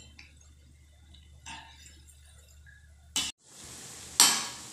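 Gulgula fritters deep-frying in a kadai of hot oil: a faint sizzle that breaks off briefly about three seconds in, then returns as a steadier, louder sizzling hiss. About a second later a slotted spatula strikes the pan with a sharp clink as the fritters are turned.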